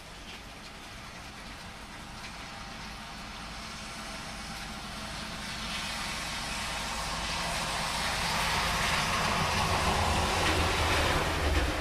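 A car approaching on a wet road over heavy rain, its tyre hiss and low rumble building steadily for about ten seconds until it passes close by near the end, where the sound drops off quickly.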